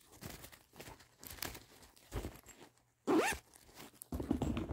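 Zipper of a fabric zip pouch being worked in several short rasping pulls, the loudest about three seconds in.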